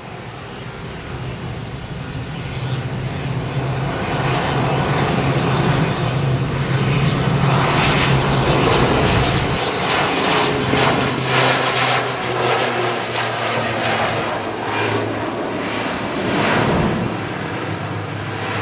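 Twin Pratt & Whitney Canada PW127 turboprops of an ATR 42-600 at take-off power during the take-off roll: a steady low propeller drone that grows louder as the aircraft approaches, is loudest as it passes about halfway through, and eases a little as it lifts off and climbs away.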